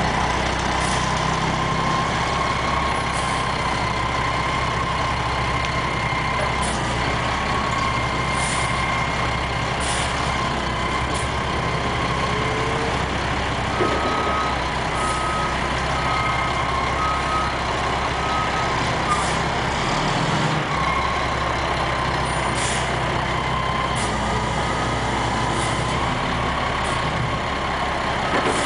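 Front-loader garbage truck working a dumpster: its diesel engine runs steadily with a constant whine, short hisses of air come now and then, and a backup beeper sounds about once a second for several seconds midway.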